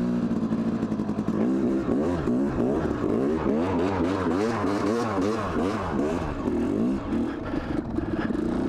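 2002 Yamaha YZ250's single-cylinder two-stroke engine under way, its revs rising and falling over and over as the throttle is worked, then holding steadier near the end.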